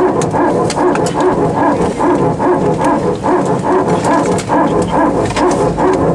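Music with a steady, pulsing beat.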